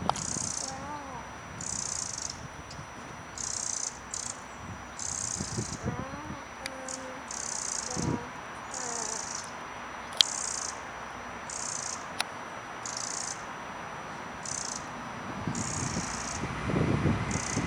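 Eurasian wrens giving their alarm call: short, high-pitched rattling bursts, repeated about every second to second and a half, in alarm at a cat.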